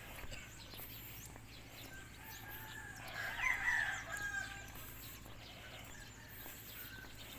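A rooster crows once, about three seconds in: one call of a second and a half that rises and then holds, over faint steady background noise.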